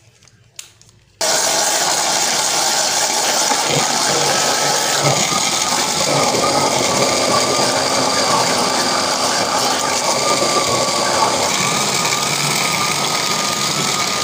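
Electric mixer-grinder starting about a second in and running steadily, blending mango pieces into a thick purée in its jug. A faint wavering whine sits over the motor and blade noise.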